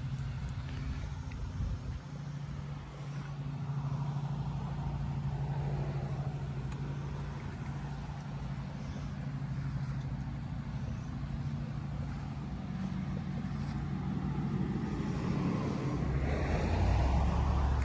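A steady low mechanical hum, like a motor or engine running, over a background of noise. It swells louder near the end.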